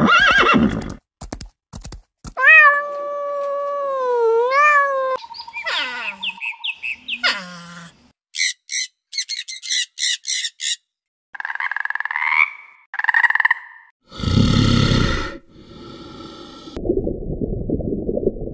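A string of different animal calls one after another, opening with a short horse whinny and a few clicks. A long, steady pitched call follows, then quick high chirps and harsh squawks, and near the end bursts of rough, noisy sound.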